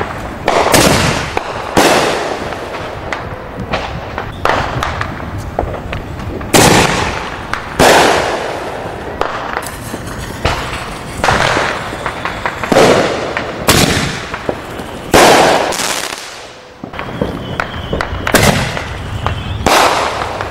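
Fireworks going off in a series of loud bangs, about ten over twenty seconds at uneven intervals, each trailing off in echo.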